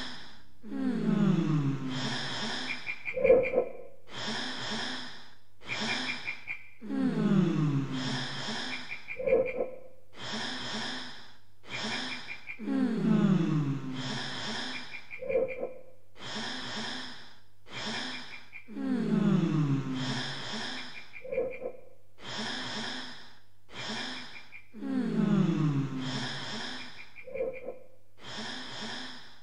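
Experimental music built on a loop that repeats about every six seconds: a falling low sigh-like glide, then a string of short breathy, hissy bursts and a brief pulsing high tone.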